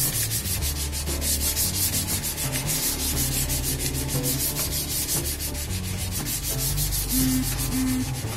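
Fine sandpaper rubbed by hand over a painted car bumper in rapid, even back-and-forth strokes. This sanding flattens out a deep scratch before the bumper is repainted with spray paint.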